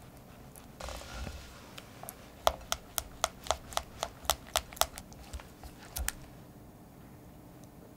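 Silicone spatula stirring a thick cream cheese mixture in a glass bowl: a soft scrape, then a run of sharp clicks, about four a second, as the spatula knocks against the glass, ending in a few scattered taps.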